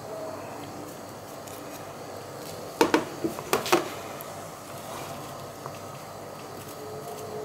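Handling noise from a graphics card being wiped with a tissue and repositioned on a cardboard box: a quick cluster of sharp knocks and scrapes about three seconds in, with faint rubbing otherwise.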